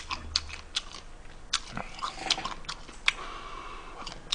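Close-miked mouth sounds of a person eating: chewing with a string of sharp wet clicks, then a soft slurp of shrimp-ramen broth from a ladle near the end.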